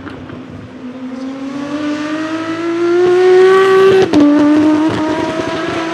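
Aston Martin Vulcan AMR Pro's naturally aspirated V12 accelerating hard past, rising in pitch and loudness. A quick upshift about four seconds in drops the note, and it climbs again.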